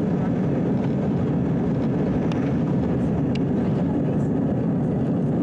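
Airliner cabin during the take-off roll: a steady, low rumble of the jet engines at take-off power and the wheels on the runway, with two faint clicks partway through.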